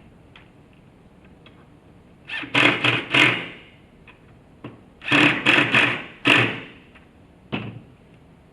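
Power driver running screws into wooden pew brackets in short trigger pulses, two sets of three or four quick bursts, snugging the screws without over-tightening so they don't strip out. A few light knocks in between.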